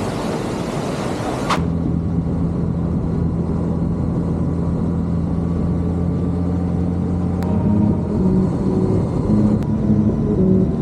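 Harley-Davidson cruiser's V-twin engine running at a steady pace while riding, after a burst of rushing noise that cuts off about a second and a half in. Other shifting tones join near the end.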